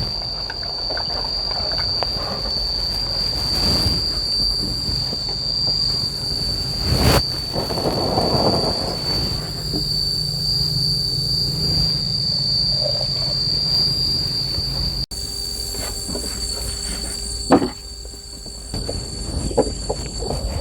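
Insects chirring with one steady high-pitched tone, over a low background hiss and a few sharp knocks.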